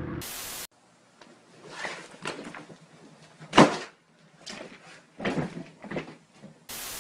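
A scattered series of wooden knocks and bumps from bedroom furniture being handled, with the loudest bang about three and a half seconds in. Short bursts of hiss at the start and near the end.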